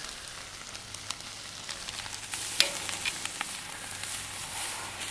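Boneless chicken thighs sizzling and crackling as they sear on a hot barbecue grill. The sizzle grows louder a little over two seconds in, with a sharp click at about the same moment.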